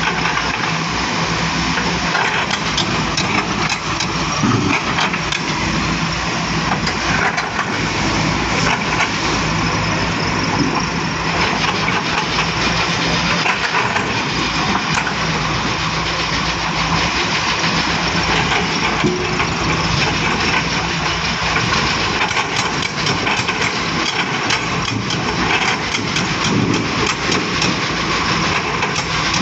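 Volvo excavator's diesel engine running steadily under work, with scattered short clanks and knocks over it, more of them toward the end.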